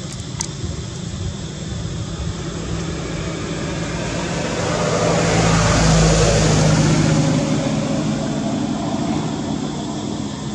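A motor vehicle passing by: its engine and tyre noise swell to a peak about six seconds in, then fade away.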